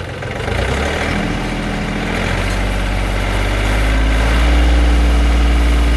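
John Deere 3005 compact tractor's three-cylinder diesel engine revving up from idle toward 2500 rpm, its pitch climbing over the first few seconds, then running steady and loud. It is driving the PTO-powered Woodland Mills WC68 wood chipper, bringing its flywheel up to speed.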